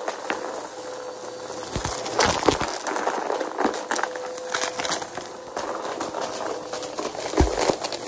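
Upright vacuum cleaner running over carpet. A steady motor tone sits under a dense crackle and rattle of confetti and small debris being sucked up, with a few low thumps as the head is pushed back and forth.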